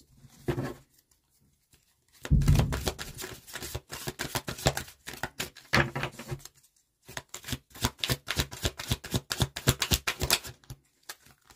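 Tarot cards being shuffled by hand: two runs of rapid papery card clicks with a short pause between, the first starting with a soft thump.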